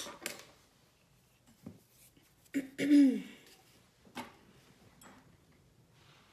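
A woman clears her throat once, about three seconds in, with a few light clicks before and after.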